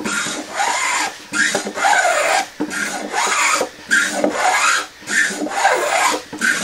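Block plane shaving along the edge of a wooden board in repeated scraping strokes, about five in a row, each about a second long with a brief break between. These are light smoothing passes that refine the surface after heavy shaping cuts.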